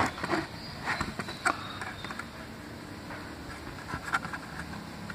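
Scattered light clicks and taps of a screwdriver and fingers handling a netbook's plastic case, several in the first second and a half and a few more around four seconds in.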